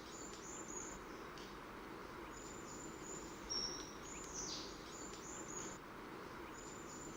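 Birds chirping: high, thin calls in short runs, repeated throughout, over a faint steady outdoor background hiss.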